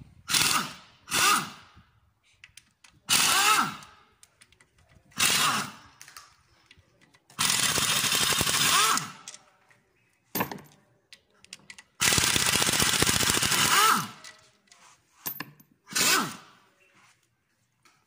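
Pneumatic impact wrench (air gun) run in short bursts, about eight in all, two of them held for a second or two, its whirring pitch rising and falling as it spins bolts out during an engine teardown.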